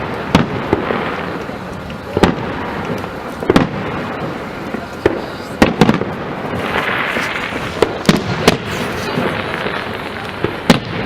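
Festive fireworks salute: a dozen or so sharp bangs of shells bursting, at irregular intervals, over a continuous background rumble and hiss.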